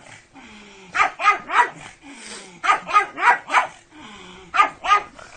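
Dog barking in three bursts of two to four quick barks, with short pauses between them.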